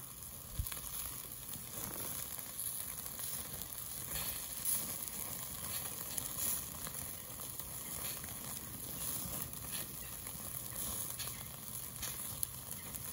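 Burgers and sausages sizzling on a barbecue: a steady hiss with scattered small crackles and pops.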